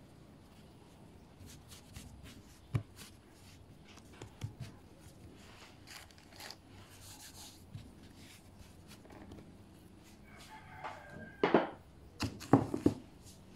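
A rooster crowing near the end, the loudest sound, after a few light knocks.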